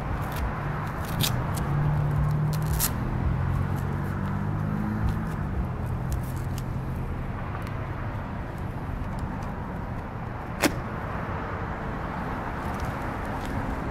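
Motor vehicle engine noise with low tones that shift in pitch over several seconds, over a steady rush, with a few light clicks and one sharp click about ten and a half seconds in.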